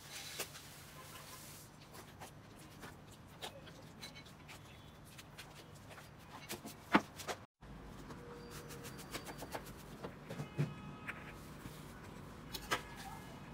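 Slime being worked by hand: faint, scattered sticky clicks and crackles as it is squeezed and stretched, with one sharper click about seven seconds in. After a short gap, softer clicks follow as a spatula cuts and presses through slime.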